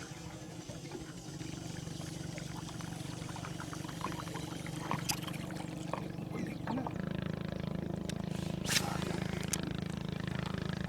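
Boat motor humming steadily, growing louder and fuller about seven seconds in, with a few sharp clicks around the middle and near the end.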